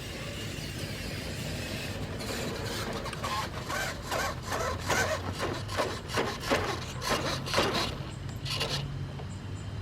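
Bicycle making a rhythmic scratchy rubbing noise, about three strokes a second, starting about two seconds in and stopping near the end.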